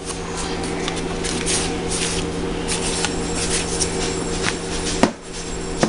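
Dry rustling and shuffling as seasoning is mixed through flour, with a sharp click about five seconds in, over a steady low hum.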